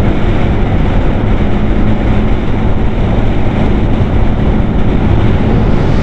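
Heavy wind noise on the microphone over a motorcycle cruising steadily on a highway, its engine a steady hum underneath.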